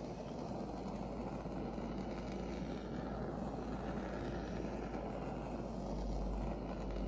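Heat gun blowing steadily, melting and fusing a layer of encaustic wax.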